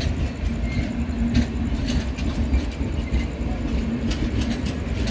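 Passenger train running on the track, a steady low rumble with its wheels clicking and knocking over the rail joints at irregular intervals.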